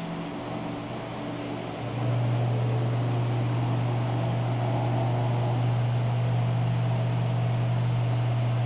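Steady low mechanical hum over a constant hiss, typical of a running aquarium pump or filter; the hum weakens briefly and comes back to full strength about two seconds in.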